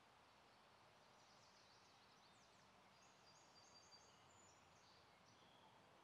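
Near silence with faint, distant bird chirps: a string of short high notes and quick sweeps through the middle of the stretch.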